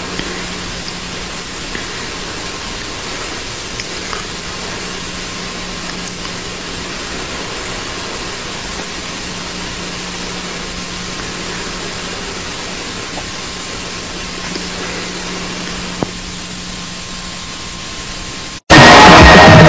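Steady hiss with a faint low hum and a few faint taps. Near the end it cuts off abruptly and loud rock music with guitar and drums starts.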